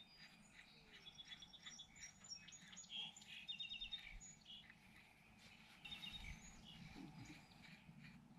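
Faint birdsong: small birds chirping, with a few quick trills of rapidly repeated notes.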